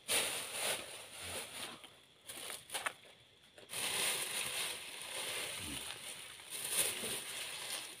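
Crab shell cracking and crunching between teeth as spicy crab salad is chewed, with sharp cracks among longer stretches of crunching.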